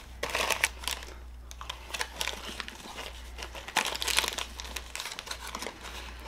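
Brazil nut cookie packaging being opened, crinkling and tearing in irregular bursts, loudest just after the start and again about four seconds in.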